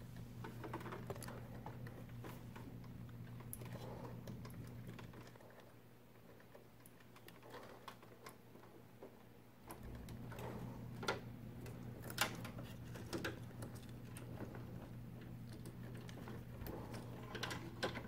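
Faint scattered clicks, taps and rustling of hands working an 8-pin CPU power cable connector into the motherboard inside a PC case, over a low steady hum.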